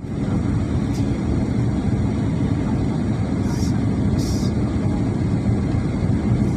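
Steady low rumble of an airliner's cabin on descent, engine and airflow noise heard from a window seat, with a couple of brief soft hisses about halfway through.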